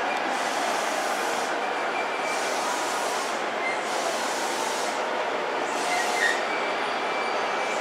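A JR East E233-3000 series electric commuter train braking into the platform and slowing to a halt, a steady rolling rumble and hiss. Brief faint squeals come from the wheels, one a little louder about six seconds in.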